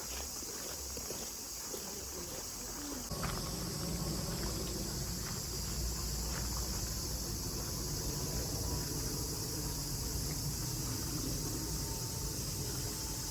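Chorus of Japanese cicadas (semi) shrilling, a steady high-pitched hiss with no break. A low rumble joins about three seconds in.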